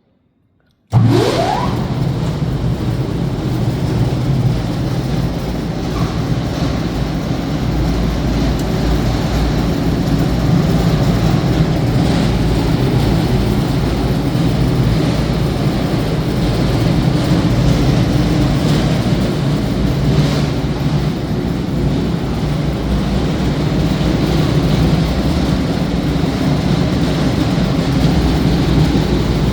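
Wood grinder with a 25 hp motor switched on about a second in: it spins up with a quick rising whine, then runs loud and steady.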